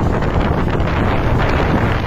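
Wind buffeting the microphone of a moving motorcycle: a loud, steady rushing rumble with no clear engine note.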